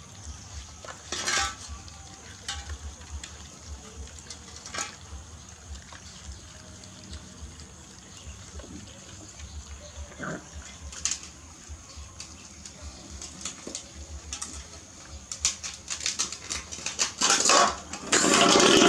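A litter of puppies eating from plastic plates on concrete: wet lapping and chewing with scattered clicks and scrapes of the plates, which get busier and louder in the last couple of seconds.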